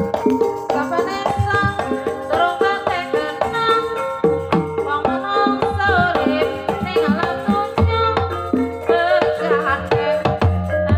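Live Javanese jaranan dance music: kendang hand drums beating a quick, busy rhythm under a wavering melody line.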